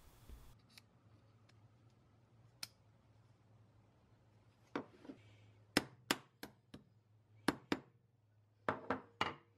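A dozen or so light, sharp metal taps, mostly in quick pairs and threes through the second half, as a trigger pin is driven into the side of a shotgun's trigger plate.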